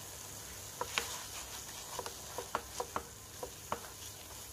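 Silicone spatula stirring a thick coconut modak mixture with ghee in a non-stick pan: soft, irregular taps and scrapes against the pan, over a faint sizzle.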